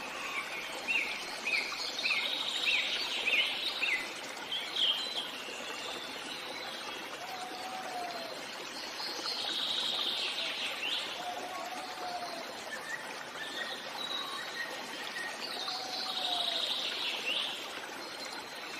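Birds chirping and calling over a steady running stream: a quick run of short chirps in the first few seconds, then trilling calls that come and go.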